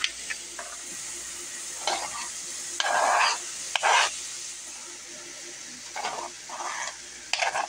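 Diced onion sizzling steadily in oil in a stainless skillet, with a few scrapes and knocks as diced frozen bell peppers are pushed off a plastic cutting board into the pan.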